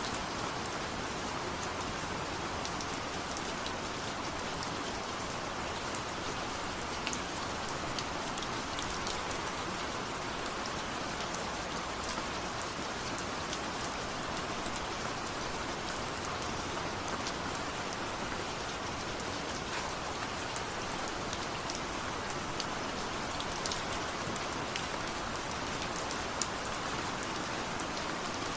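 Steady rain falling, a continuous even hiss with scattered individual drops ticking on a surface.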